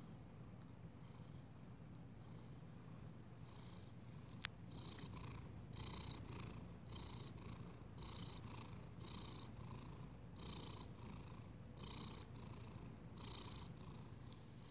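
Domestic cat purring faintly close to the microphone: a steady low rumble that pulses about once a second. A single sharp click about four and a half seconds in.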